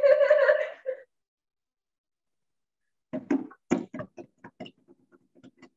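A woman's held wailing cry, about a second long. After a pause comes a run of short, uneven sobbing breaths.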